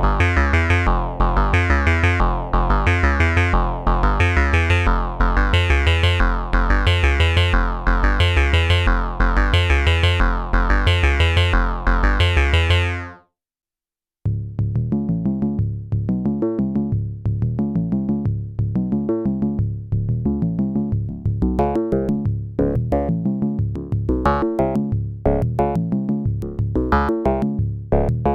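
Cre8audio Capt'n Big-O analog oscillator playing a sequenced synth pattern: a repeating run of pitched notes with a bright sweep about once a second, which cuts off suddenly about 13 seconds in. After a second of silence, a second patch starts with a quicker sequence of short notes and sharp clicks.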